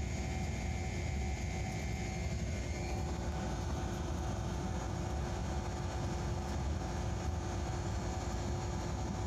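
Diesel locomotive running at speed: a steady engine drone over a low rumble of wheels on track, with a faint high whine that fades out about three seconds in.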